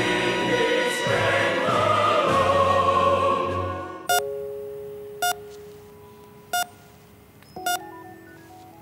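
Choral music that cuts off abruptly about four seconds in, giving way to a hospital cardiac monitor beeping once per heartbeat, a short sharp beep about every second and a quarter, over faint steady electronic tones. The slow beep rate matches a heart rate of about 49.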